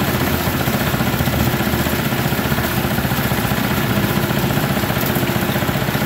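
Small single-cylinder petrol engine running steadily with a fast, even beat, belt-driving a dry-coffee huller and its blower fan.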